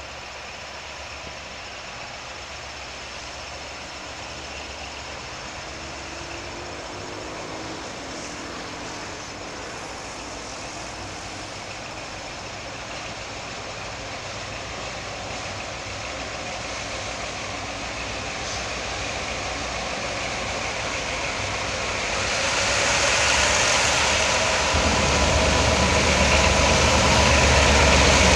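A pair of EMD G22U diesel-electric locomotives approaching, their engines growing steadily louder as they near. From about 22 seconds in, a louder, brighter noise of the approaching train is added.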